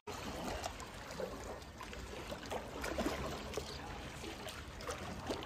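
Swimming pool water sloshing and lapping against the pool's edges in small irregular splashes, set moving by an earthquake.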